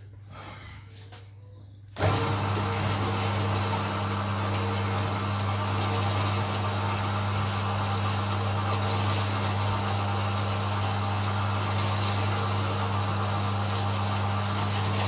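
Horizontal metal-cutting bandsaw switched on about two seconds in, then running steadily as its blade cuts through steel plate: a deep motor hum with a thin, steady high whine over the cutting noise.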